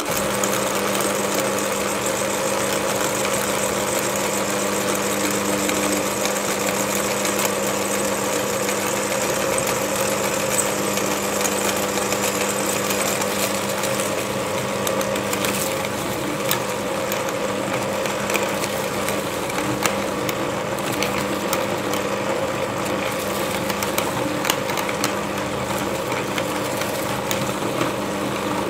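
Motor-driven meat grinder running empty through a belt and large pulley wheel, its auger turning in the metal housing. It switches on suddenly and runs with a steady hum, with a few faint clicks later on.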